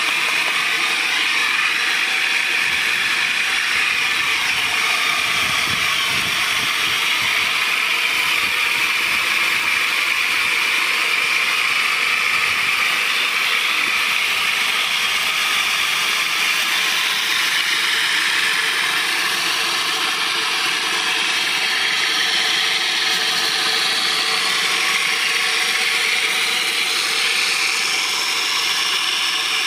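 Small homemade mechanism, a ball-bearing wheel working syringe pistons through wire rods, running fast: a steady, even mechanical rattle and whir that does not change.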